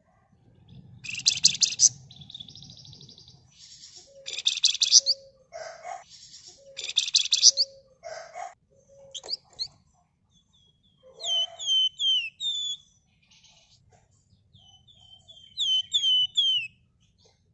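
Flamboyan songbird singing: several bursts of rapid, dense buzzing trills ('ngebren'), then two runs of short, quickly repeated down-slurred whistled notes near the end.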